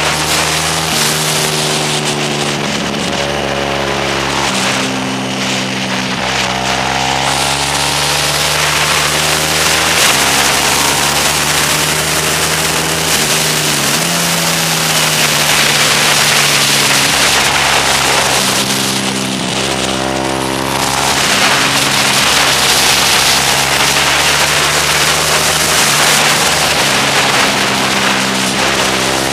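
Motorcycle engine running hard, its pitch climbing and dropping several times as it accelerates, shifts gear and slows for corners, under a steady rush of wind over the microphone.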